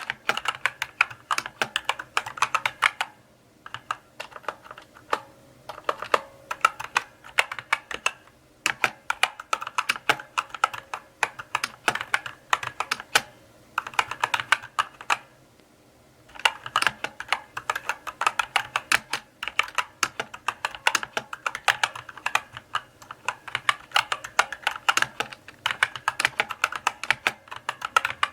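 Mechanical keyboard being typed on slowly: runs of sharp key clicks and clacks, broken by short pauses a few times.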